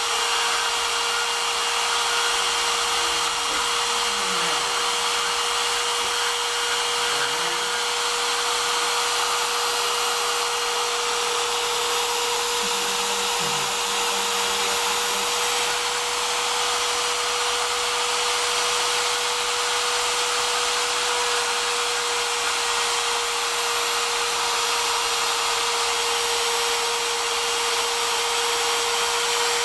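Homemade CNC router's spindle motor running steadily, a constant whine over a hiss. A few short falling tones come in the first several seconds.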